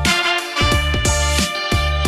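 Instrumental background music with a steady beat and a bass line.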